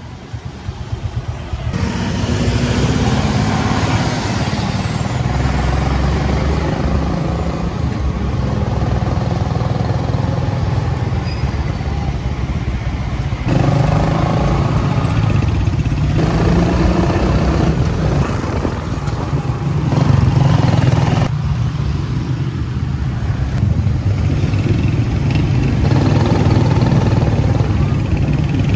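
Motorcycle tricycle's engine running under way in traffic, heard from the sidecar, its note changing several times as it speeds up and slows.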